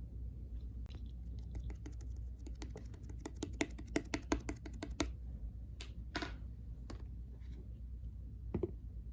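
Fingers pressing and poking a jelly-textured slime, making a quick run of small clicks and pops that is densest in the middle, then a few scattered pops.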